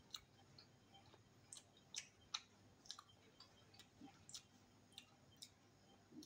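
Faint, irregular wet clicks of chewing with the mouth closed, about two a second, over near silence. A soft low knock comes about four seconds in as the glass of cola is taken up.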